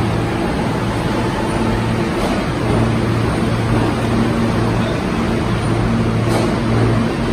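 Subway train running through an underground station: a loud, steady rumble with a low hum that comes and goes.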